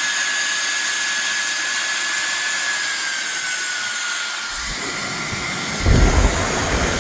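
Bladeless Dyson-style ionic hairdryer running: a steady rush of air with a high motor whine that drops slightly in pitch about three seconds in. A low rumble sets in near the end, loudest about six seconds in.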